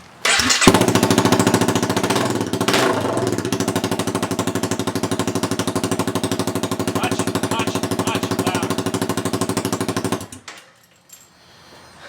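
2013 Honda CBR250R's single-cylinder engine started and run with no muffler on the open header pipe: loud, with an even rapid pulsing at idle. It is shut off about ten seconds in.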